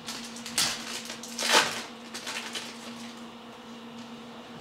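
Trading cards being handled and flipped, with two short rustles, the louder about a second and a half in, then a few light clicks, over a steady low hum.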